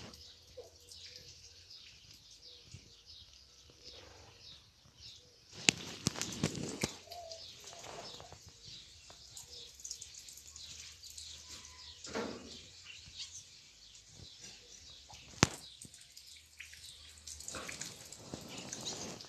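Faint rustling and shuffling as newborn kittens shift about on a fleece bed. Two sharp clicks stand out, one about six seconds in and one about fifteen seconds in.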